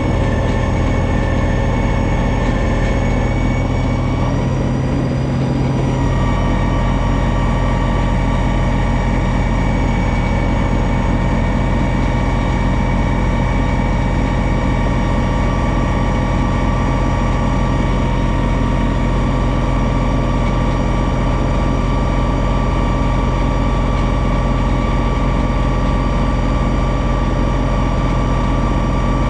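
John Deere 2032R compact tractor's three-cylinder diesel running steadily at working speed, driving a front-mounted 60-inch snowblower that is throwing snow. The engine's pitch shifts briefly about five seconds in, then holds steady.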